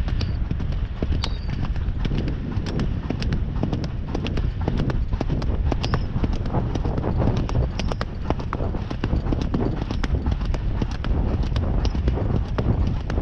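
Horse's hooves striking the ground at a brisk, steady gait, a rapid run of hoofbeats over a steady low rumble.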